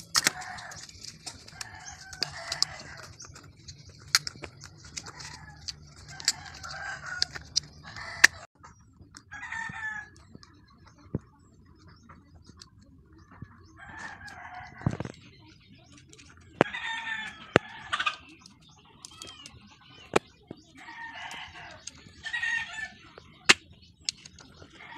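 Chickens calling again and again in short calls, often two in quick succession, with sharp clicks and taps of plastic parts and rubber bands being handled. A steady high hiss runs under the first eight seconds and then stops.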